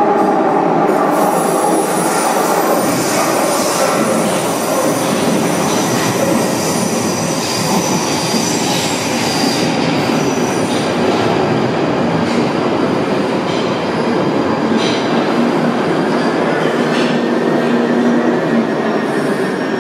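London Underground Northern Line 1995 Stock train running into a tube platform and braking to a stop. It makes a loud, steady rumble of wheels on rails, with high-pitched wheel squeal through the first half and a gliding tone near the end as it slows.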